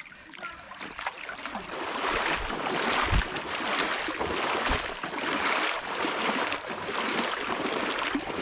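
A person wading quickly through a shallow stream, with water splashing and sloshing in surges about twice a second as the legs push through. There are a couple of heavier low thumps along the way.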